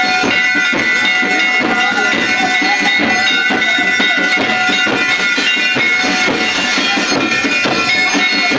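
Loud procession music: a high, steadily held piping tone with its overtones over repeated percussive beats, amid crowd noise.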